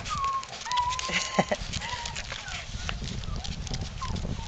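Puppies whining and whimpering: a string of short, thin, high cries, one after another, some bending up or down in pitch.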